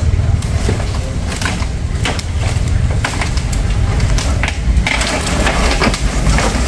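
Wood cracking and snapping from rain tree limbs: a run of irregular sharp cracks over a steady low rumble.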